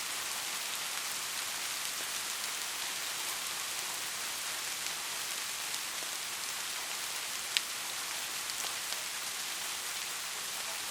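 Soft, steady rain falling, an even hiss with scattered drop ticks, one sharper drip about seven and a half seconds in.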